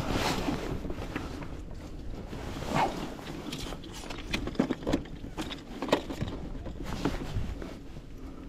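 Irregular knocks, taps and rustles as a pike is handled and laid on a measuring board in a plastic sit-on-top kayak, over a low rumble of wind and water.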